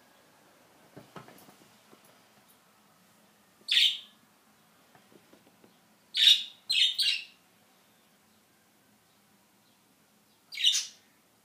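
Pet budgerigars giving short, shrill chirping calls, one at a time: four separate calls, the third a quick double. A few faint knocks come about a second in.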